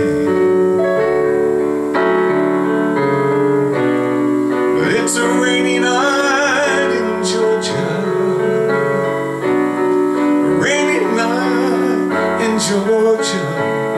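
Casio digital piano playing slow, sustained chords of a soul ballad, with a man's low voice singing along at times.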